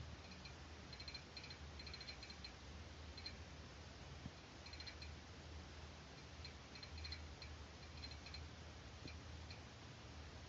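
Near silence: a faint low hum with scattered soft ticks and clicks in irregular clusters.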